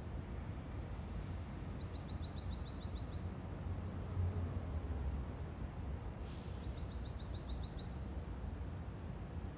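A small songbird sings two rapid, high trills of quickly repeated notes, each about a second and a half long and a few seconds apart, over a steady low rumble.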